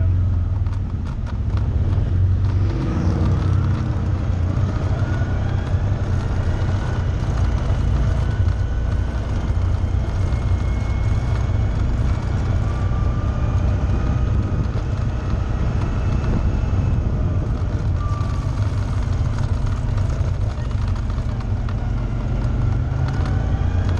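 Engine of a side-by-side off-road vehicle (UTV) running under way. Its pitch rises as it accelerates about two seconds in, it holds a steady drone, and it rises again near the end.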